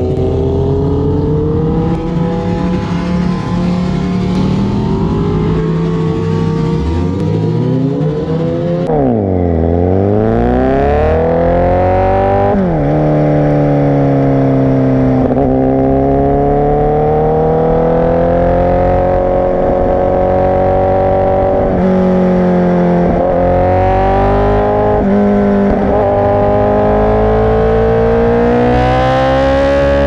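Honda CBR1000RR SP1's inline-four engine through a Racefit Growler X exhaust, ridden hard: the revs fall sharply about a third of the way in and climb again, with quick drops in pitch at upshifts, and they rise steadily near the end.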